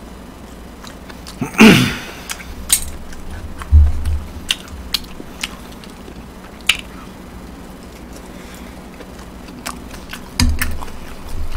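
Eating at the table: chewing and a loud mouth sound with a falling pitch about two seconds in. Sharp clicks of metal chopsticks, tongs and a spoon against the pans run throughout, with a couple of dull thumps.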